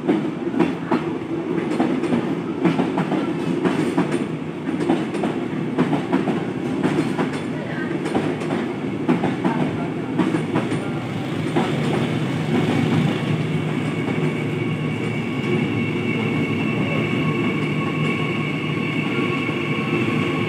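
Electric passenger trains running through a station. For the first ten seconds or so the wheels clack rapidly over the rail joints above a running rumble. From about twelve seconds in the clacking thins out and a steady high whine joins the rumble as an electric commuter train runs in alongside.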